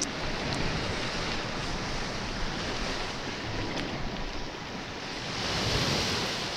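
Sea waves washing, with wind noise on the microphone; one wave surges louder with a hiss near the end.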